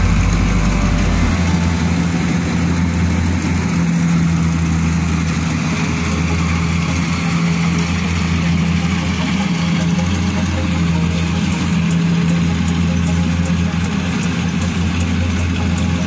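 Kubota DC-70 combine harvester's diesel engine running steadily as the machine cuts rice, a constant low hum with a steady droning tone.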